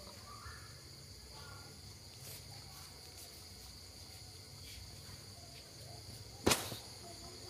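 A steady, high-pitched trill hangs in the background, with a low hum beneath it. About six and a half seconds in there is one sharp knock, the loudest sound here.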